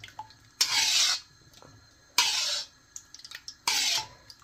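A steel spoon scooping soft desi ghee into a pan: three short scraping hisses about a second and a half apart, with a few faint clicks of the spoon between them.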